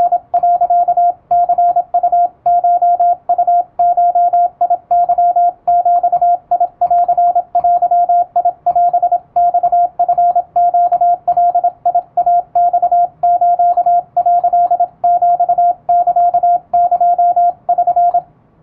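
Japanese (wabun) Morse code sent with an electronic keyer: a single steady tone switched on and off in quick dots and dashes, with short gaps between characters. The keying stops shortly before the end.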